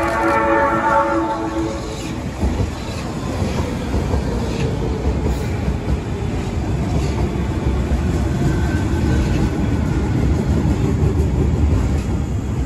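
Osaka Metro 20 series train running past: a steady low rumble of wheels on rail with scattered clicks from rail joints. A brief pitched tone with several notes stacked together fades out in the first second or two.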